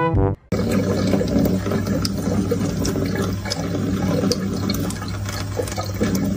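Brief brass music, which cuts off about half a second in, then a kitchen faucet running steadily in a thin stream, with a steady low hum beneath it.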